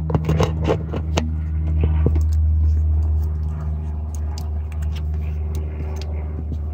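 A steady low mechanical hum, with a quick run of clicks and scrapes in the first two seconds.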